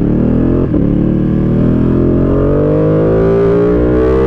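Ducati Panigale V2's 955 cc V-twin, breathing through a twin-outlet MIVV exhaust with no dB killer, accelerating hard. The engine note climbs steadily, with a brief dip under a second in.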